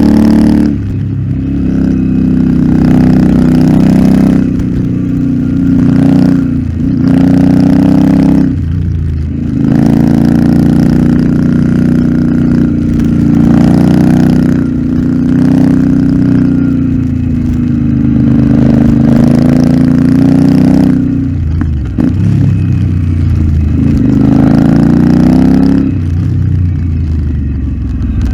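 Royal Enfield Interceptor 650's 648 cc parallel-twin engine through an aftermarket Nuke exhaust, ridden hard: it revs up and drops back again and again, with short dips in loudness every few seconds between pulls.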